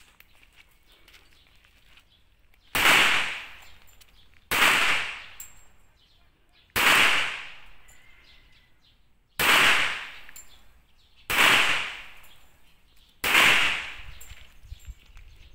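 Six pistol shots fired one at a time, about two seconds apart, each a sharp crack followed by about a second of fading echo.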